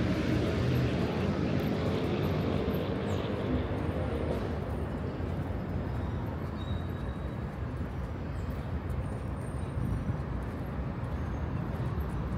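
City street traffic: a steady hum of vehicles on the avenue, louder in the first few seconds and then easing off.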